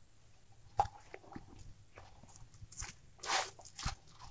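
Rice-flour dough being kneaded by hand in a steel bowl: a few short, irregular squishing and rubbing sounds as the dough is pressed and turned against the bowl.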